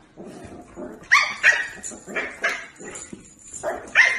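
A small puppy yapping in short, high-pitched barks, about six of them in quick pairs.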